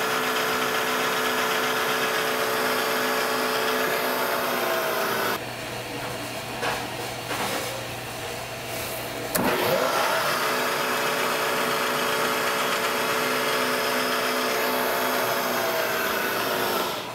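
Vertical milling machine's spindle motor running with a steady hum while drilling a 1/4 inch hole in a metal block; it shuts off and winds down about five seconds in. After a few clicks and a sharp click, the motor starts again with a rising whine, runs steadily, and winds down near the end.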